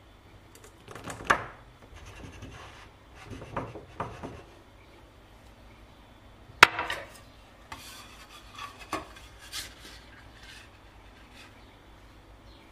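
A drinking glass pressed down through soft almond cookie dough onto a baking tray to cut crescents, giving short scraping and knocking sounds, with one sharp click near the middle. After it, a metal bench scraper scrapes across the tray a few times as it slides under a cut cookie.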